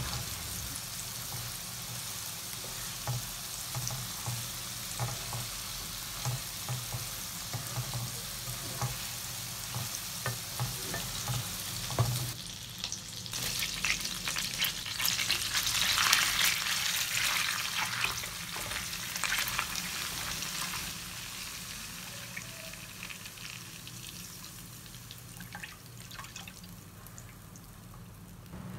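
Butter sizzling in a hot frying pan as curry leaves, chilli, garlic and onion are fried in it, with scattered clicks of a utensil. The sizzle swells loudest for several seconds about halfway through, then dies down.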